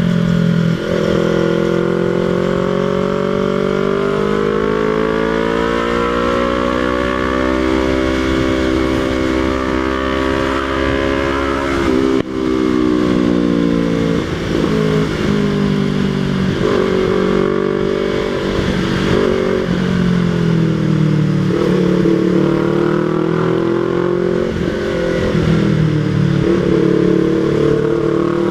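Yamaha MT-03 motorcycle engine through an aftermarket Jeskap exhaust with the dB killer removed, running loud and steady under way. The pitch climbs slowly for about ten seconds, drops sharply about twelve seconds in, then rises and falls with the throttle.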